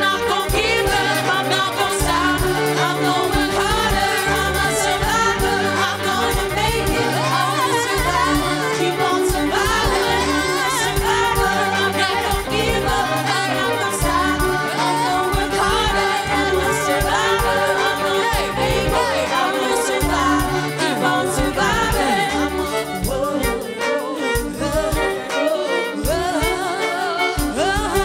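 Live band music: several women singing together over an electric bass line, played loud and steady.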